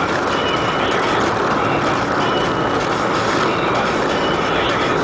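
Steady engine and tyre noise heard inside the cabin of a car driving along a road. A few short high-pitched tones come and go over it.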